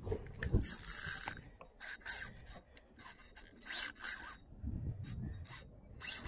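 Spinning fishing reel being cranked in short, irregular spurts, its gears giving a ratcheting whir as line is wound in.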